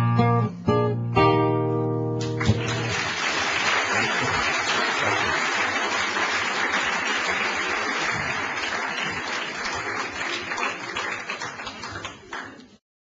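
Acoustic guitar playing the closing notes and final chord of a song, dying away about three seconds in, as audience applause starts. The applause goes on steadily and fades out near the end.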